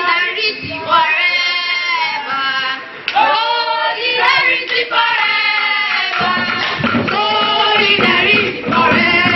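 A group of voices singing a song together in chorus, with handclapping. The sung phrases break off briefly about three seconds in and again about six seconds in.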